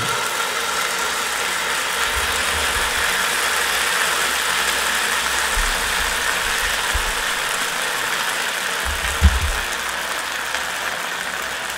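Sabudana-potato batter sizzling steadily in a hot oiled nonstick pan as it is spread out with a steel ladle, with a soft bump about nine seconds in.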